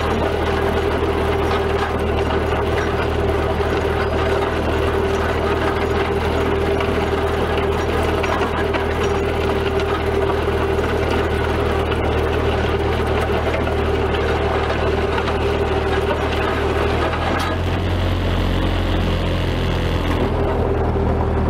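1944 Ford 2N tractor's four-cylinder flathead engine running steadily as the tractor is driven, heard close from the seat. Its note changes about seventeen seconds in.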